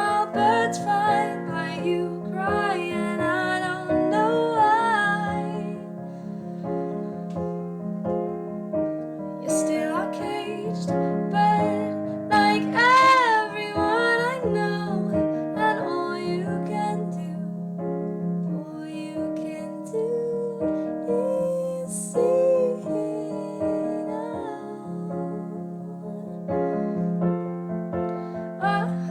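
A slow song: a woman singing with vibrato over piano accompaniment, the voice coming and going between held notes.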